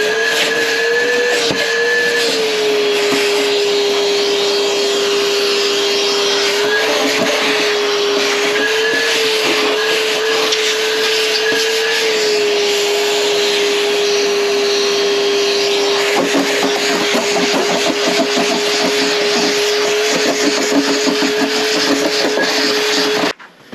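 Vacuum cleaner running steadily, its whine dipping and rising slightly as the airflow changes, then switched off abruptly near the end.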